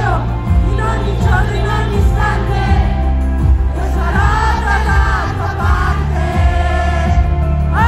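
Live pop concert music: singing over a band with a heavy, steady bass.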